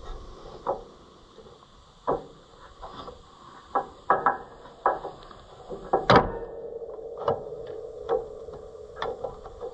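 Wooden pitman arm pieces for an Oliver 356 sickle mower knocking and clacking against the mower's iron crank fitting and against each other as they are worked into place by hand for a test fit. The knocks come irregularly, and the loudest is about six seconds in.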